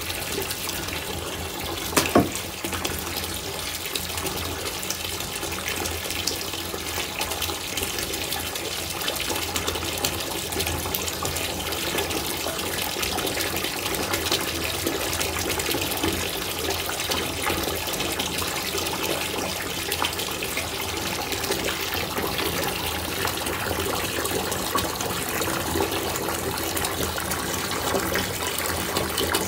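A Mother of Pearl bath bomb fizzing in bath water: a steady hiss of bursting bubbles, dotted with fine crackles. A single sharp knock or splash comes about two seconds in.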